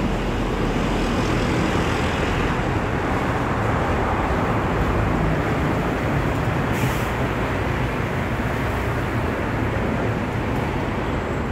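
Steady rushing outdoor noise with a low hum underneath, even throughout with no distinct events.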